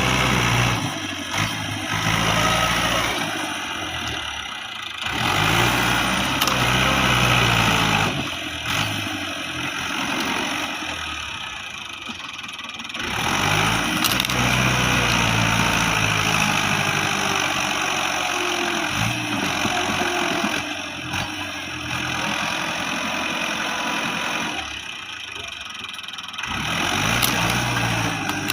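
Dabang 85 tractor's diesel engine working under load while pulling out an old tree stump, revving up and easing back several times in surges.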